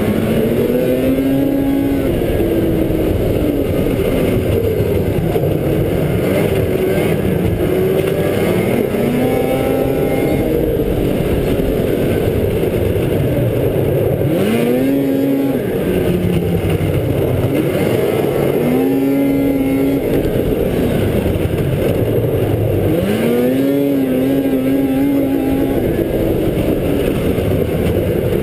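Race snowmobile engine heard close up from the rider's helmet at speed, rising in pitch as it accelerates and falling back again, several times over.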